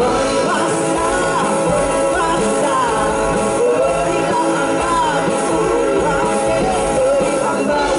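Live amateur rock band playing: two young vocalists singing into microphones over electric guitars and a drum kit, amplified through a PA and loud throughout.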